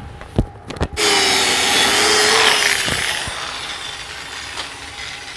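A few sharp knocks, then a powered wire wheel running against the steel weld, scrubbing slag off a freshly laid 7018 fill bead; the scrubbing is loudest early on and grows quieter after about three seconds.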